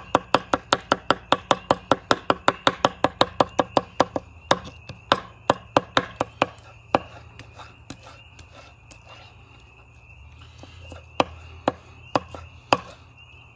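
Chef's knife chopping roasted poblano peppers on an end-grain wooden cutting board: rapid, even chops about five a second for the first four seconds, slowing after that, then a pause and a few scattered chops near the end.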